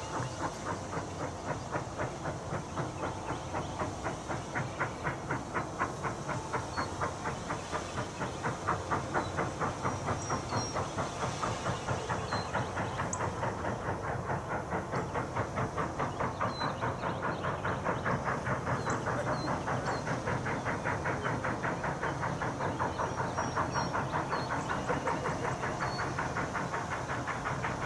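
Norfolk & Western 611, a Class J 4-8-4 steam locomotive, working hard out of sight with its exhaust chuffing in an even rhythm that gradually quickens, over a steady hiss of steam.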